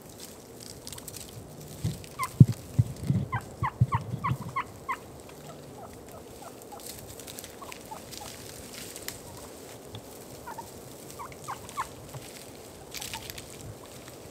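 Wild turkeys calling at close range: a quick run of about six short falling notes a few seconds in, over a cluster of low thumps, then a few softer scattered notes later on.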